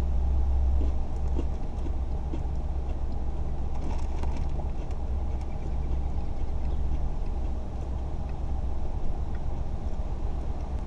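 Steady low rumble inside a car cabin, with a few faint clicks.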